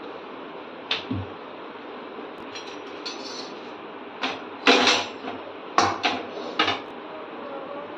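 Metal tongs clanking against a tawa and the stovetop as rotis are lifted and turned over a gas flame: one clank about a second in, then a cluster of sharp clanks in the second half, the loudest about halfway through, over a steady hiss.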